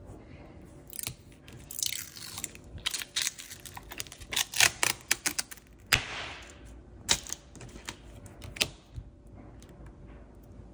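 Protective plastic film being peeled off metal nail stamping plates with tweezers: crinkling rustles of the film, with scattered sharp clicks and taps of the tweezers and plates. The longest crinkle comes about six seconds in.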